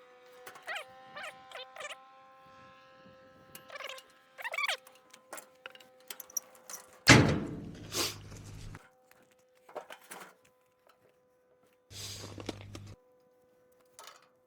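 Aerosol can of PB Blaster penetrating oil spraying onto rusty bolts in two hisses, a longer one about halfway through and a shorter one near the end, over a steady background tone.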